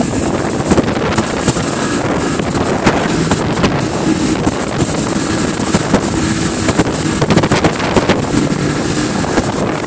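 Outboard motor running at speed on an inflatable boat, under water rushing and splashing past the hull, with heavy wind buffeting on the microphone.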